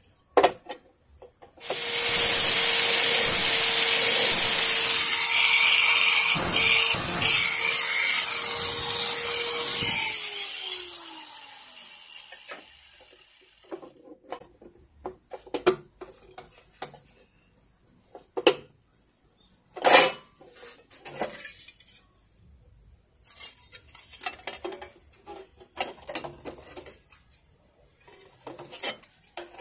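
A handheld power tool runs loudly and steadily for about eight seconds, then its motor winds down. After that come scattered light clicks and taps as a sheet-steel patch panel is handled and fitted against a rusted body panel.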